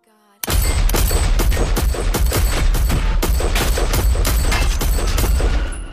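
Rapid gunfire: a long volley of sharp shots, about four a second, over a heavy low rumble. It starts abruptly about half a second in and stops just before the end.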